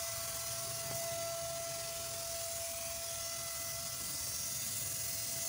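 Compressed-air spray gun hissing steadily as it sprays a clear gloss varnish top coat onto wooden window frames, with a thin steady whistle in the air flow.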